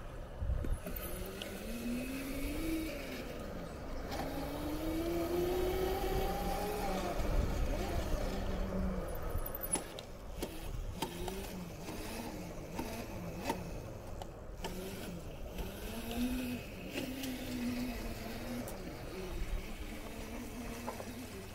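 Small electric motor whining, its pitch rising and falling over a few seconds at a time as it speeds up and slows, with rumbling wind noise underneath.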